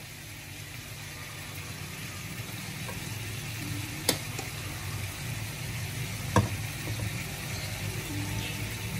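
Parboiled basmati rice being spooned into a nonstick pot over a steady low hiss, with two sharp knocks of the serving spoon against the pot, about four and six and a half seconds in.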